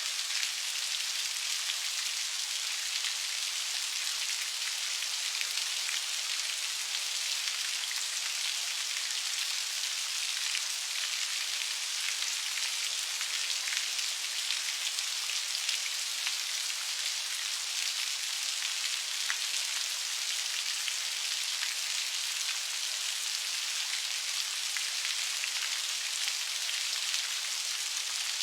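Steady rain falling, an even hiss of many fine drops.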